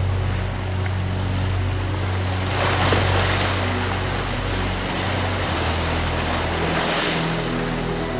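Surf washing in, swelling twice, about three seconds in and again near the end, over a low sustained music drone.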